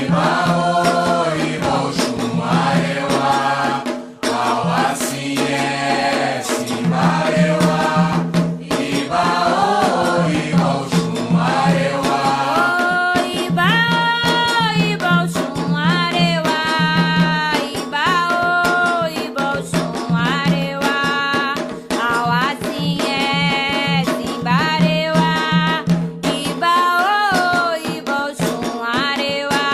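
Voices singing a Candomblé ponto for Xangô, a sung chant over steady percussion with a rattle-like shaker.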